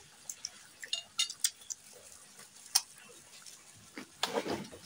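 Eating at the table: scattered light clicks and clinks of chopsticks and a fork against a plate of fried noodles, with one sharper click a little before three seconds in and a brief louder chewing noise a little past four seconds.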